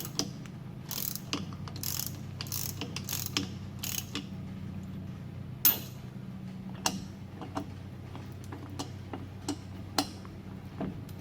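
Hand ratchet with extension and 3/4 inch socket turning a nut on a truck's front hub, the pawl clicking in quick runs of strokes for the first few seconds, then in scattered single clicks. A steady low hum runs underneath.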